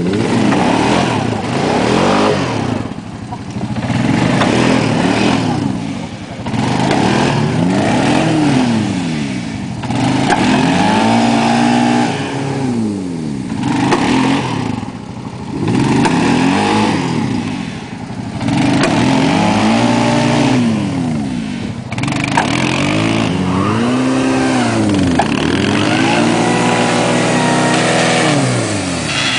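A vehicle engine is revved up and let back down over and over, one rise and fall every two to three seconds.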